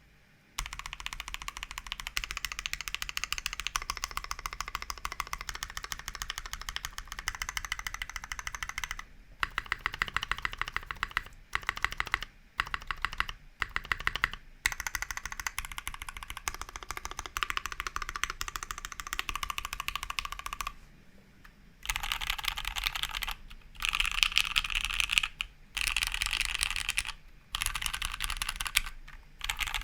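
Typing on a Monokei Kei mechanical keyboard with Gateron Black Ink v1 linear switches, GMK ABS keycaps and an aluminum half plate: a fast, continuous stream of keystrokes with a poppy sound. It starts about half a second in, stops briefly about two-thirds of the way through, then resumes louder.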